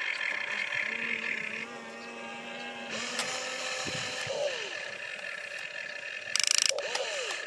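Radio-controlled excavator's small electric motors whining steadily as the arm swings round and the boom lowers the bucket, the whine changing pitch as each movement starts and stops. A brief loud buzzing burst about six and a half seconds in.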